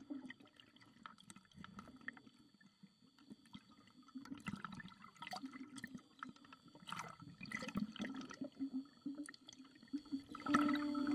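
Seawater sloshing and bubbles crackling around a camera at the surface as a scuba diver goes under, with many small clicks. Music comes in near the end.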